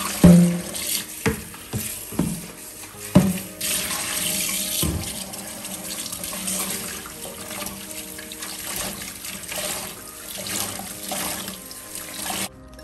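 A few sharp knocks as a plastic basin is handled over a stainless-steel sink, then water from the kitchen tap running steadily onto a cloth in the soapy sink water. The running water cuts off suddenly near the end.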